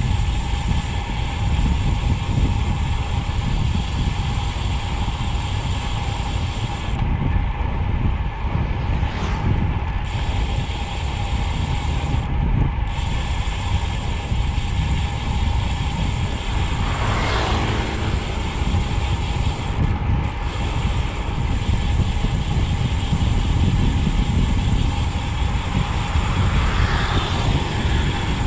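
Elite ENT 50mm disc wheel's rear freehub buzzing steadily while the road bike coasts downhill at about 40 km/h, under heavy wind rush and tyre noise. The top of the buzz drops out briefly a few times about a third of the way in. Near the end a motorcycle passes, its engine rising and falling.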